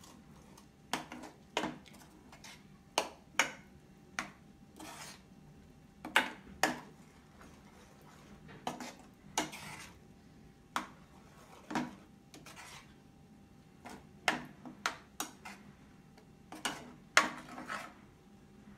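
Steel spoon stirring a thick masala paste in a frying pan, knocking and scraping against the pan's sides and base in irregular strokes, with a few longer scrapes.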